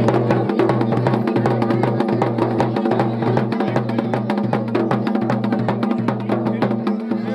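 Music with fast, dense percussion over a low bass note that drops out briefly at a regular pulse.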